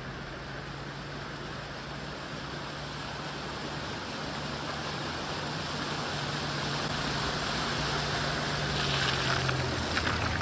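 A lowered Volvo saloon driving slowly through shallow floodwater, its engine running steadily under a constant rush of water and growing louder as it comes closer. Near the end the tyres' splashing through the water comes up sharply.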